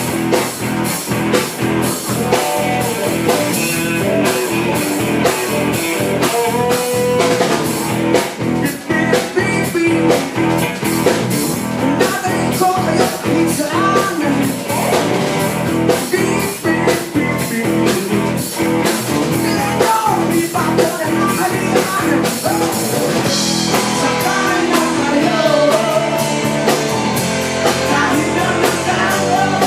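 A rock band playing a song: singing over guitar and a drum kit keeping a steady beat.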